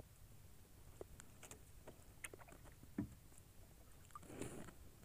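Very quiet small fishing boat with scattered light knocks and taps on the hull, a soft low thump about three seconds in and a brief swish near the end.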